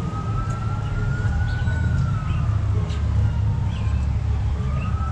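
Emergency-vehicle siren wailing: a single tone slowly rising, then falling away, and starting to rise again near the end. A steady low rumble runs underneath, with a few short bird chirps.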